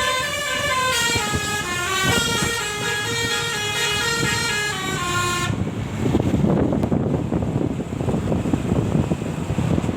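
A bus's telolet basuri multi-tone musical air horn playing a winding melody that steps from note to note. About five and a half seconds in the horn stops suddenly and a loud rough noise with no clear pitch takes over.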